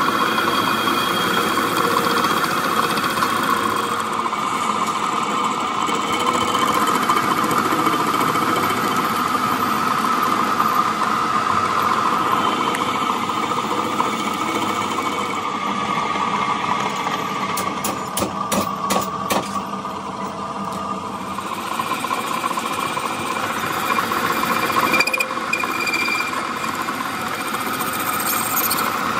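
Metal lathe running with its cutting tool facing the end of a steel truck axle shaft, a steady machining drone. There is a short run of sharp clicks about two-thirds of the way through.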